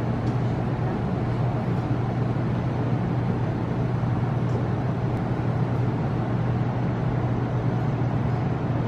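Steady outdoor city background: a constant low hum under an even wash of distant traffic noise.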